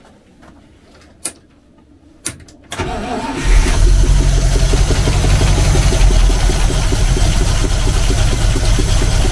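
GAZ-66's V8 petrol engine cranks briefly and catches about three seconds in, then runs loud and unevenly with the choke pulled. It is misfiring, still firing on only some of its eight cylinders. A few sharp knocks come before the start.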